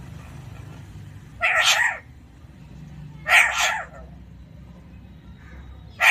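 A parrot calling loudly three times, each call about half a second long, with the third right at the end.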